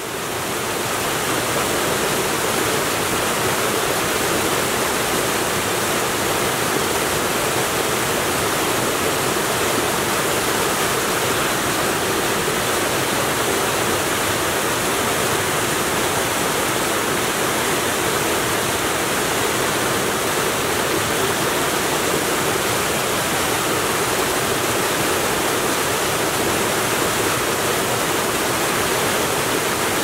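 Mountain stream cascading over boulders in a string of small falls: a steady rush of water that fades in over the first second.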